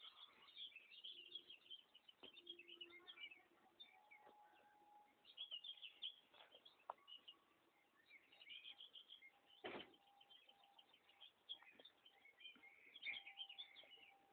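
Faint birdsong: several birds chirping in quick, overlapping calls, with a single sharp click about ten seconds in.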